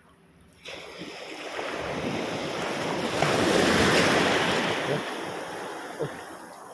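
Sea wave surging and washing in, a rushing swell of water that starts suddenly, peaks about halfway and then fades.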